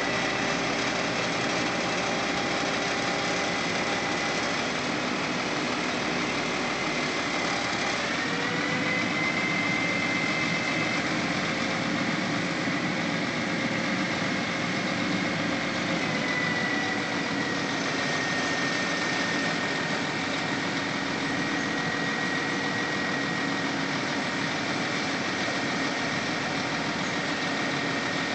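Crane truck's engine running steadily to power the truck-mounted knuckle-boom crane as it lifts a load, with a high whine over it that shifts in pitch about eight seconds in and again around sixteen seconds.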